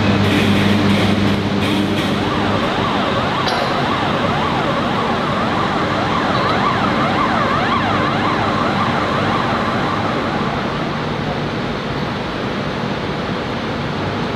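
Steady loud machinery noise in a heavy forging shop, with a warning siren wailing up and down from about two seconds in until about eleven seconds in, while the overhead crane handles a red-hot forging.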